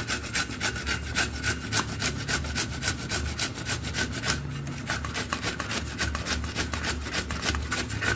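Raw green mango, peel on, being grated on the coarse side of a stainless steel grater: quick, regular rasping strokes, several a second, with a brief break about four and a half seconds in.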